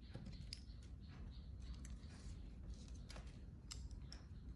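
Scissors cutting paper: faint, irregular snips and clicks of the blades.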